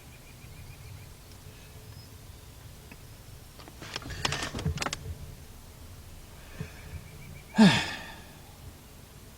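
A quick run of clicks and rustling, like a handheld scan tool being handled and its buttons pressed. Near the end comes one short, loud sound that slides down in pitch.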